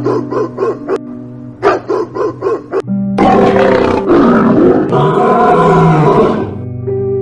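A dog barking in two quick runs of sharp barks, then a big cat's loud roar lasting about three seconds, over background music.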